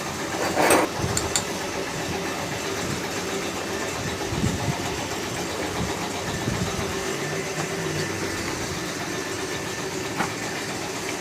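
A sharp metallic clank about a second in, with a few lighter clicks after it, over a steady mechanical hum. These are metal engine parts being handled during a teardown.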